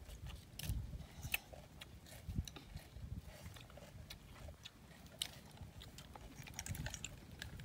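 Faint, scattered clicks and taps of cooked snail shells being handled in a woven basket as the meat is picked out with a small stick, over a low rumble.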